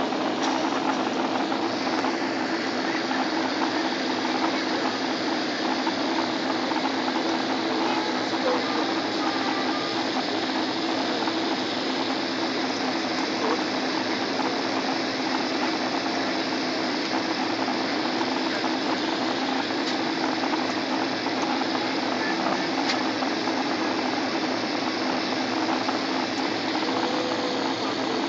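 Steady aircraft cabin noise heard from inside the passenger cabin: engines and rushing air blend into an even roar with a steady low hum, unchanging throughout while the plane flies its landing approach.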